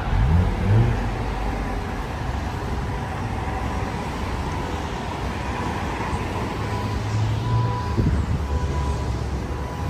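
Steady low rumble of a car heard from inside the cabin, with a brief rising sweep and a thump about a second in and another thump near the end.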